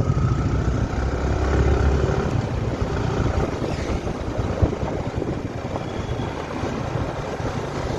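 Motorcycle engine running as the bike rides along at about 30 to 40 km/h, mixed with rushing wind noise on the microphone. A low rumble is strongest in the first couple of seconds.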